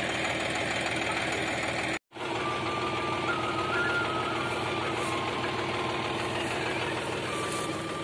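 A tractor-driven Swami Redlands round baler running: a steady mechanical drone from the engine and the baler's chains and sprockets. The sound cuts out for a moment about two seconds in. From about three seconds in, a faint high tone steps up and down in pitch over the drone.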